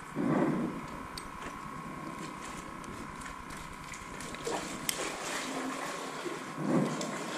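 Handling of a light spinning rod and reel: scattered small clicks and soft bumps from fingers working the reel and line, over a faint steady hum.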